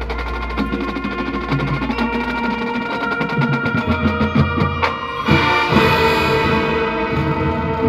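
High school marching band playing its show music, with rapid drum-line percussion under sustained brass and wind chords; the full ensemble comes in louder about five seconds in.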